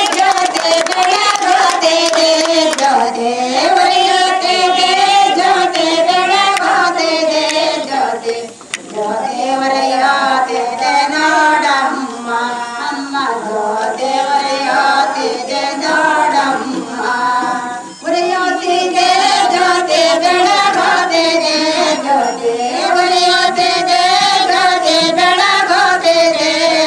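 Prayer song sung in Carnatic style by high voices, a single wavering melodic line with short pauses about 8 and 18 seconds in.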